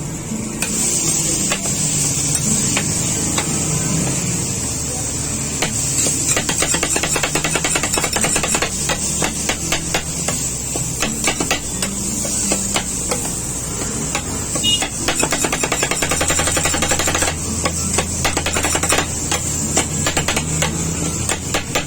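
Rapid, rhythmic metal clatter of spatulas chopping and tossing filling on a flat-top griddle, over a steady high hiss.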